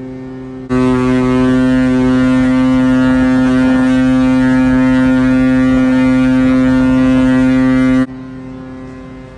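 Ship's horn sounding one long, steady blast, a low tone with many overtones, sounded as a memorial salute. It starts abruptly about a second in and cuts off suddenly near the end, leaving a fainter horn of the same pitch.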